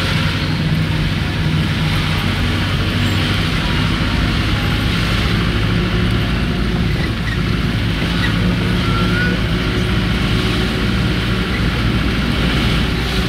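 A car's engine running steadily with tyre hiss on a wet road, heard from inside the cabin while driving.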